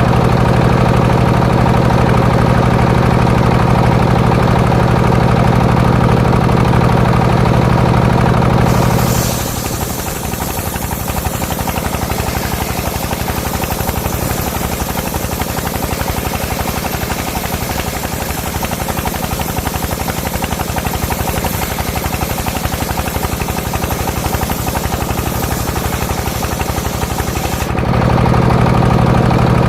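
Engine-driven circular sawmill running, then its blade cutting through a coconut palm trunk for about twenty seconds with a steady high hiss while the engine's hum drops under load, then running free again near the end.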